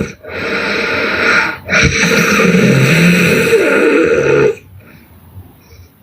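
A person snoring loudly: two long snores in quick succession, the second lasting nearly three seconds, then a pause of about a second and a half near the end.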